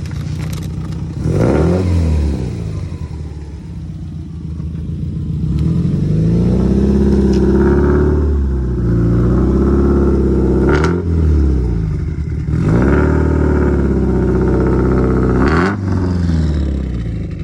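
Subaru WRX STI's turbocharged flat-four engine pulling hard: the pitch climbs and holds, drops suddenly with a sharp snap about eleven seconds in, climbs again and drops with another snap near the end, like gear changes under acceleration.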